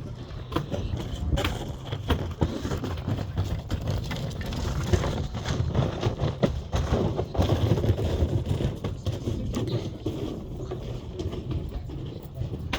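Scattered, irregular knocks and clatter over a steady low rumble.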